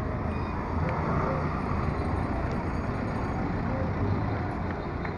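A Toyota van drives past at close range with its engine running. Scooter traffic in the street adds to the steady engine and road noise.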